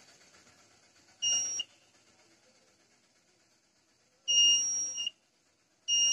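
Digital multimeter's continuity buzzer beeping three times as test probes touch points on a phone logic board: a short beep about a second in, a longer one around four seconds in, and another short one at the end. Each beep marks continuity between the probed points, the check used to track down a shorted component on the board.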